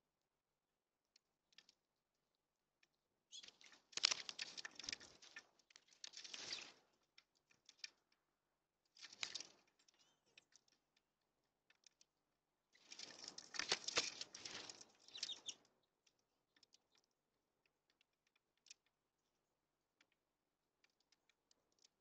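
Mourning doves' wings flapping in three bursts, the first and last each lasting a few seconds and the middle one short, with faint scattered clicks in between.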